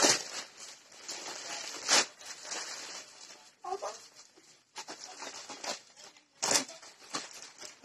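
Wrapping paper and plastic packaging rustling and crinkling as a gift is unwrapped, with three sharper crackles: at the start, about two seconds in, and again near the end.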